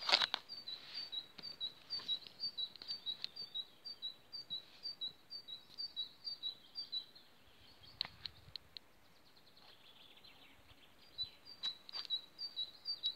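A songbird singing a quick run of high two-note chirps, about three or four a second, pausing for a few seconds in the middle before starting again.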